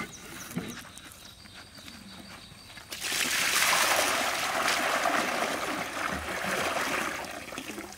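Water poured from a large plastic jug gushing and splashing into a big empty metal wok. The pour starts about three seconds in, runs steadily for about five seconds, and stops just before the end.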